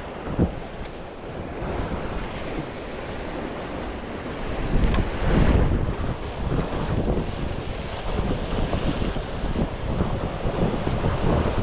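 Wind gusting over the microphone with sea surf behind it, rising and falling in strength, with one brief knock about half a second in.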